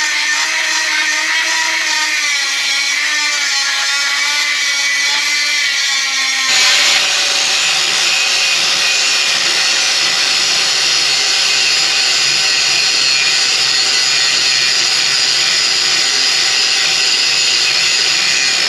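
Angle grinder grinding down welds on a steel motorcycle frame, its whine wavering in pitch as it is worked against the metal. About six and a half seconds in it changes abruptly to a steadier, higher-pitched whine.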